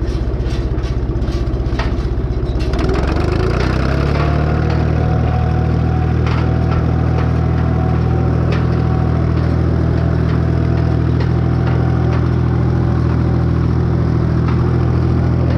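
Tractor engine running at idle with regular ticks, then throttled up about three seconds in and held at a steady higher speed.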